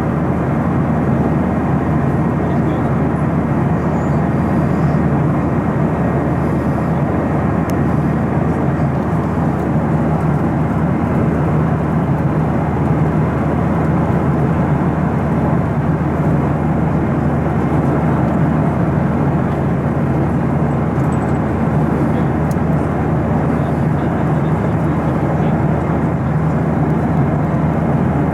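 Steady cabin roar of a Boeing 737-900ER airliner at cruise, heard from a passenger seat: an even rush of engine and airflow noise that does not change.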